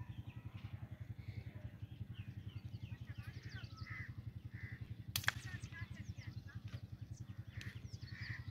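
A nearby engine idling with a steady, rapid low thump, small birds chirping over it, and a single sharp crack about five seconds in, sharp like a rifle shot.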